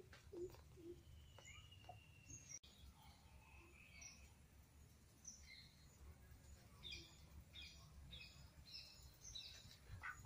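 Faint, scattered chirps and short calls of birds over a low, steady background rumble, close to silence.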